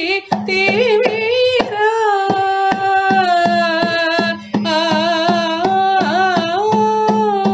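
Carnatic music in raga Surati, set to misra chapu tala: a melody of ornamented, gliding notes over steady hand-drum strokes, pausing briefly twice.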